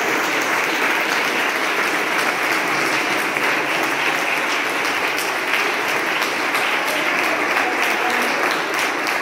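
Audience applauding: many people clapping steadily and without a break.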